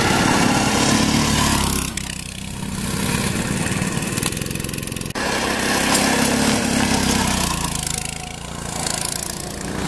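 Go-kart engines, small single-cylinder utility engines, running loudly on the move, swelling and fading as the karts pass, with abrupt changes about two and five seconds in.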